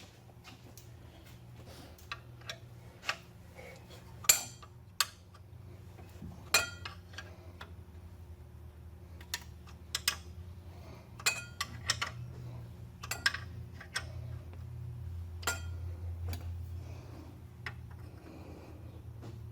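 Irregular metallic clinks and taps of a 9/16 wrench working the bolts on an old truck water pump, a few strikes ringing out sharply, over a low steady hum.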